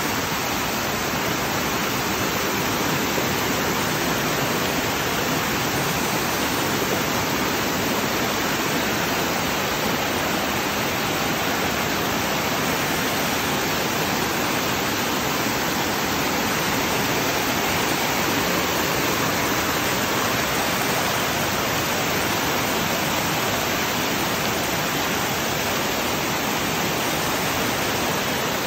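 Water cascading over rocks in a small waterfall, a steady, even rush.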